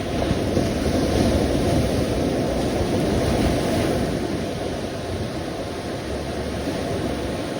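Sea waves washing on the shore: a steady low rush that swells a little in the first seconds and then eases.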